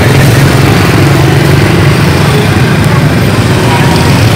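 Motor scooter engine running steadily at low speed, heard close up from the rider's seat.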